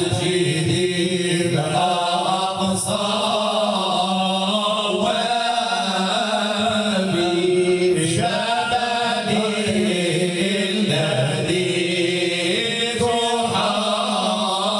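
A group of men singing Moroccan madih (Sufi praise chant) together into microphones, unaccompanied, in long drawn-out melodic lines with held notes.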